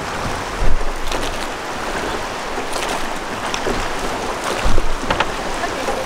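Fast river water rushing and splashing around a drift boat as it is rowed through riffles, with oar splashes and a few low thumps.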